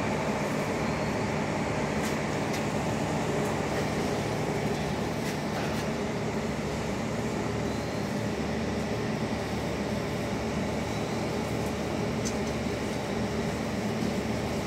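Steady machine hum made of several even tones that do not change, with a few faint light taps.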